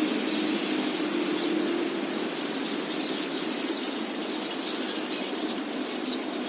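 City park ambience: a steady hum of distant traffic with small birds chirping and tweeting over it, the chirps coming thicker in the second half.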